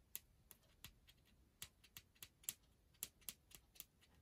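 Faint, irregular fingernail clicks and ticks as the loose end of a roll of paper masking tape is picked at and lifted.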